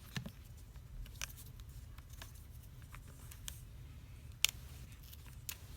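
Scattered small clicks and crackles of the adhesive tape under a ZTE Blade Z Max's plastic back cover letting go as a thin plastic pick pries the cover open, over a low steady hum, with the sharpest click about four and a half seconds in.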